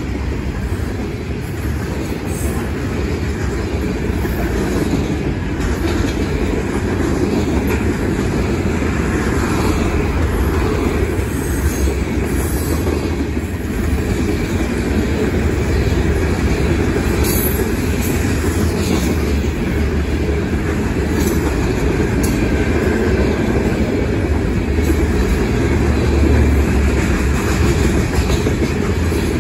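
Freight train cars, covered hoppers, rolling past at speed: a steady, loud rumble of steel wheels on rail, with occasional sharp clicks.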